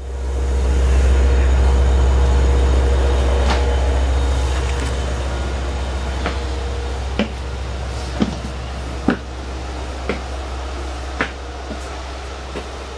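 Low, steady rumble of an LIRR DM30AC dual-mode diesel locomotive running at standstill, with a steady hum over it. It eases about seven seconds in, and from then a series of sharp knocks come roughly once a second.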